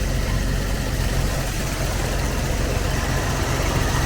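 Car engine idling steadily, freshly started after sitting unused for two weeks.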